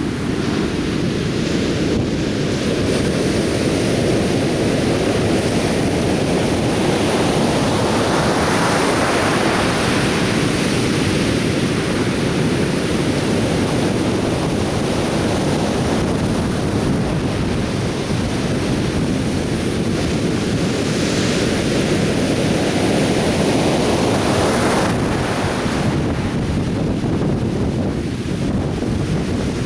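Atlantic Ocean surf breaking and washing up a beach: a continuous rush of water that swells up about eight seconds in and again near twenty-five seconds.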